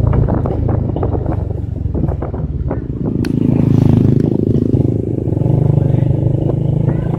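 Motorcycle engine running on the move, with wind buffeting the microphone and scattered rattling knocks. About three seconds in the engine note rises and gets louder, then settles back.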